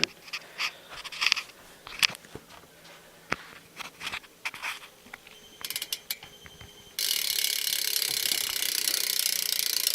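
BMX rear wheel's Premium cassette hub freewheeling: the pawls ratchet in a fast, dense buzz that starts about seven seconds in and is pretty loud. Before it come scattered clicks and knocks as the wheel is handled and turned.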